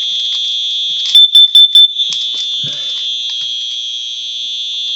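Home smoke alarms going off: one sounds a steady, piercing high tone throughout, and about a second in a second alarm adds four quick, very loud beeps over it.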